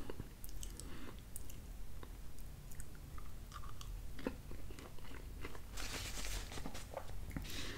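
A man chewing a forkful of thin-crust pizza: faint soft chewing with small scattered clicks. A paper napkin rustles for about a second near the end.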